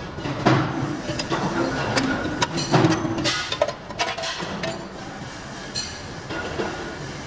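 Irregular metallic clanks and clinks of a pressed steel tractor seat pan knocking against the bending press's die and tooling as it is formed and pulled out by hand.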